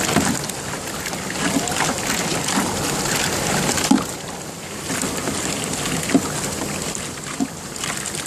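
Water sloshing and splashing in a cooler of live crawfish as a dip net is worked through it, with several short knocks and splashes spread through, over a steady rushing hiss.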